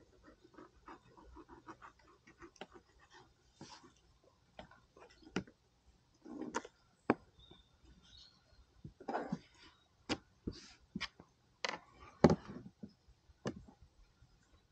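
Fillet knife cutting along a bream fillet and against the plastic table top as the skin is cut away: an irregular run of soft scrapes and taps, with a few louder knocks near the end.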